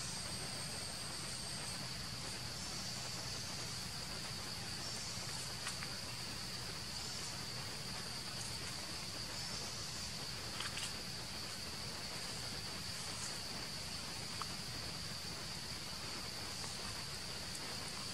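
Forest insects droning steadily at one high pitch, with a few faint short chirps now and then.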